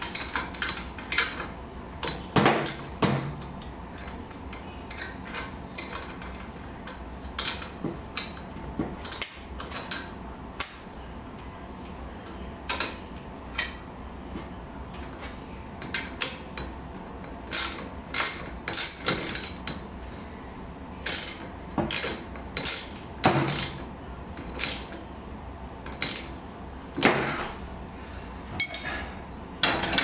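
Hand tools on the metal hardware of a garage door torsion spring assembly: scattered metal clicks, clinks and knocks as a wrench and socket work the bracket bolts, over a steady low hum.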